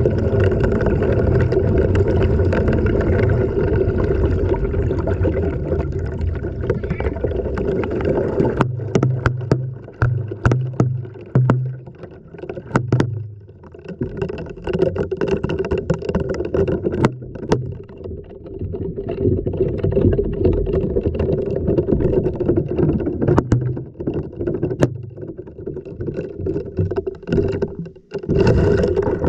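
Wash cycle of an LG washing machine heard from inside the drum: water sloshing and churning over a steady motor hum, with a run of sharp knocks about a third of the way in and a few more later as loose objects hit the drum.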